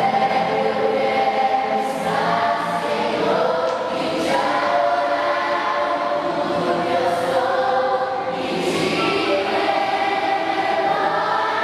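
A choir singing, many voices holding long notes together.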